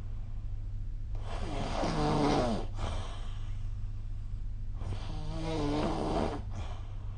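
A sleeping person snoring: two snores about a second and a half long each, a few seconds apart, with a rough, falling pitch. A steady low hum lies underneath.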